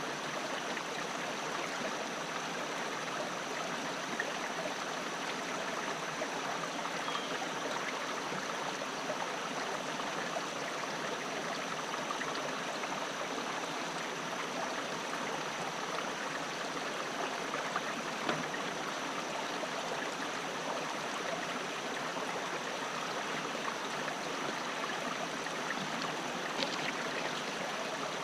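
Creek water rushing steadily over rocks, an even unbroken splashing.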